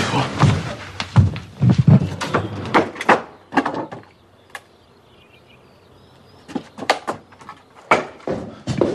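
Doors and cupboards being opened and shut, a quick irregular run of knocks and bangs for about four seconds, a short lull, then more knocks near the end.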